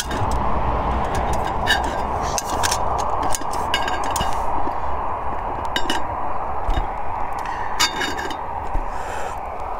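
Light metallic clinks and taps of a metal camping mug and its folding handles knocking against each other and the small gas stove's pot supports as the mug is handled, scattered irregularly over a steady rushing hiss.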